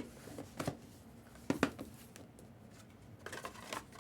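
Handling noises of a box break: a few short knocks and rustles of packaging and a boxed baseball being handled, the loudest pair about one and a half seconds in.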